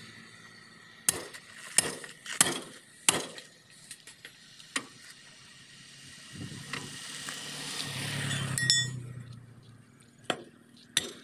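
Hammer blows on the steel rim of a jacked-up tractor rear wheel during tyre puncture work, sharp metallic clinks: a run of strikes in the first five seconds and two more near the end.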